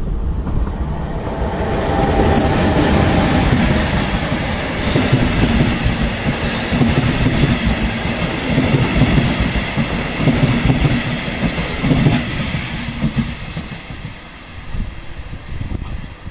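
Red DB Regio double-deck regional train passing close on the track, with wheels clattering on the rails. The sound builds about two seconds in and fades as the train pulls away near the end.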